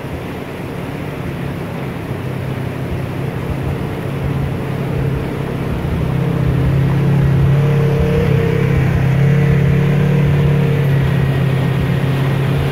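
Can-Am Maverick X3 X RS side-by-side's turbocharged three-cylinder engine running steadily and growing louder over the first half as it drives up through rushing floodwater. Its tyres throw up spray.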